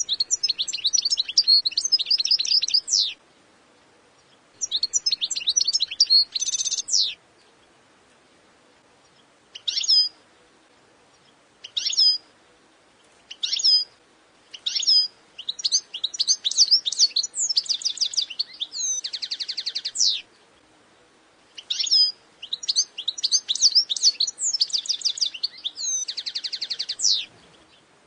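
European goldfinch singing: phrases of rapid, high twittering a few seconds long, separated by short pauses. Single short call notes come in the middle, and buzzy trills close several of the phrases.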